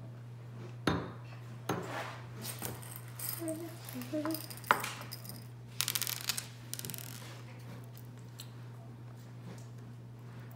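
Tabletop handling noises: scattered clicks and knocks, then small hard candy balls rattling in a plastic cup as fingers pick through them, over a steady low hum.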